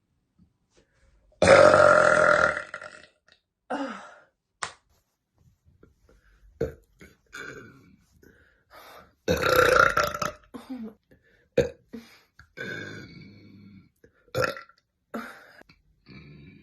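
A woman burping repeatedly: two long, loud burps, one about a second and a half in and one near the middle, with several shorter burps between and after them.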